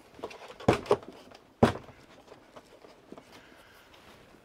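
Handling knocks and clicks as the battery cover and NiCad pack of an Amstrad ALT-286 laptop are worked at by hand: three sharp knocks in the first two seconds, the last the loudest, then only faint handling sounds.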